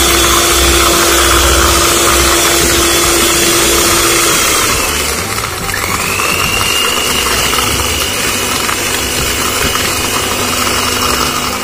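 Electric hand mixer running steadily while beating the cake batter of egg and sugar. About four seconds in the sound dips, then a rising whine settles at a higher pitch and holds, as when the mixer changes speed.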